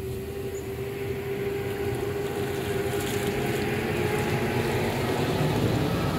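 Clothes being worked and wrung by hand in a metal basin of soapy water, with wet sloshing. Under it runs a steady motor-like hum with a low rumble that grows slowly louder.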